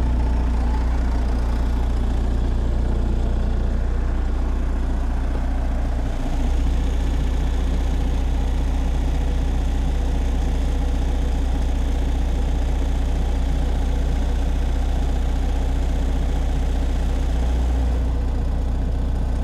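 MEP-802A military 5 kW diesel generator set running steadily at its governed 1800 rpm under electrical load from a house. The steady engine note dips briefly about six seconds in, then recovers.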